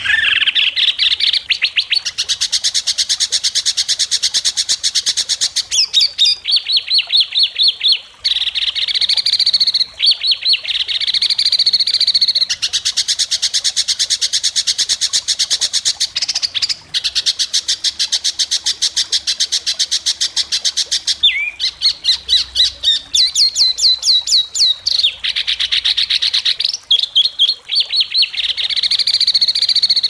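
Small songbirds singing loud, shrill, rapid trills: fast runs of sharp repeated notes, many per second, switching abruptly to a different phrase every few seconds as in a spliced song compilation.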